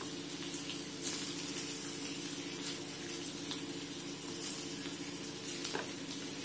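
Batter-coated drumstick pod pieces sizzling in shallow oil on a flat tawa: a steady frying hiss over a steady hum, with a light click about a second in and another near the end as more pieces are laid on.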